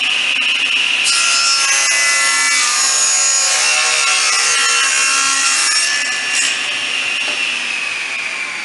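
Table saw running with a steady whine, ripping a narrow 12 mm strip off a wooden board: the cut starts about a second in and lasts about five seconds. Near the end the whine begins to fall in pitch.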